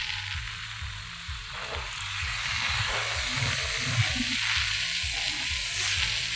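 Steady wind rushing over the microphone of a phone carried on a moving scooter, over background music with a regular low beat.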